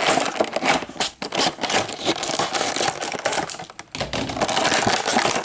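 Toy packaging being opened by hand: rapid, irregular crinkling and clicking of plastic and cardboard.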